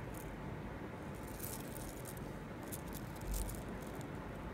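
Faint, irregular clinks and rattles of the metal links and stone settings of a multi-strand necklace being handled, over a steady background hiss, with a soft low bump about three seconds in.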